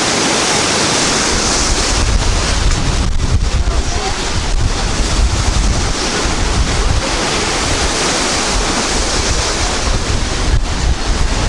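Rough Baltic surf washing and breaking along a seawall, with strong wind buffeting the microphone; deep gusty rumble from the wind sets in about a second in.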